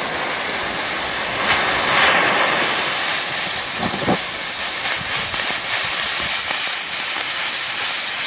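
Burning smoke ball (smoke-bomb firework) hissing steadily as it pours out smoke.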